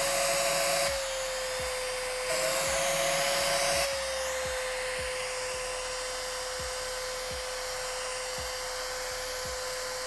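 Homemade mini vacuum cleaner running with a steady whine and hiss, its hose nozzle held sealed against skin under strong suction. Twice in the first four seconds the sound lifts, with a second higher tone and more hiss, and then it settles to an even run.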